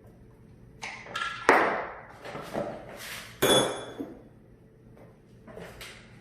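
Metal parts of a Warn 8274 winch clanking and clinking as they are handled during disassembly: a few light clicks, then two sharp metallic hits that ring briefly, about one and a half and three and a half seconds in, then softer clinks near the end.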